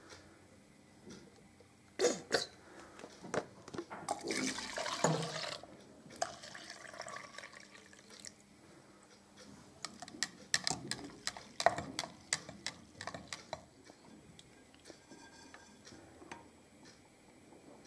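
Water poured into a plastic cylinder standing in a glass water trough, splashing most loudly about four to five seconds in. Sharp knocks and clicks from the glassware and plastic being handled: one about two seconds in and a cluster around ten to thirteen seconds in.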